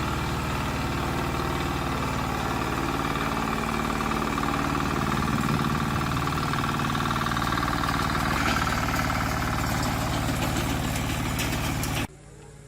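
Engine of a small gasoline-powered tractor running steadily at a constant speed, then cutting off abruptly near the end.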